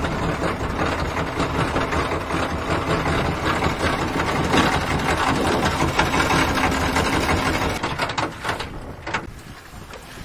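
Small wooden fishing boat's inboard engine running steadily, with wind and water noise; the sound falls away about eight seconds in.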